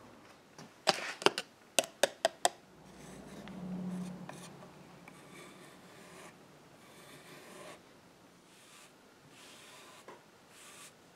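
Metal putty knife scraping water-based wood putty into gouges on a wooden table leg, with several sharp clicks and taps about a second in. Near the end a cloth rubs across the wood, wiping off the excess putty.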